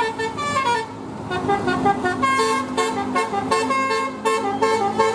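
Indonesian 'telolet' multi-tone bus horn playing a tune: a run of short toots stepping up and down in pitch.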